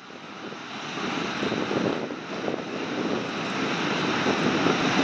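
Blue Angels F/A-18 Hornet jet engines running as the jets hold lined up for takeoff. A broad roar with a steady high whine grows louder throughout.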